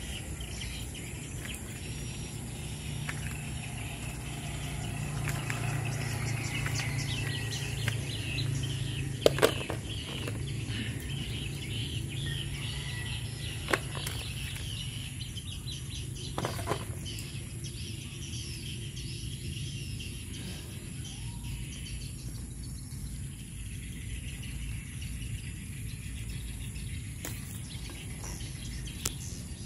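Birds chirping, with a low steady hum that fades out about two-thirds of the way through, and a few sharp clicks and rustles, the loudest a pair about nine seconds in.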